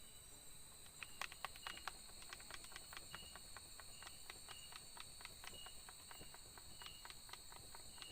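Faint night chorus of insects: a steady high buzz with a short chirp repeating about once or twice a second. From about a second in it is joined by a run of irregular sharp ticks and taps.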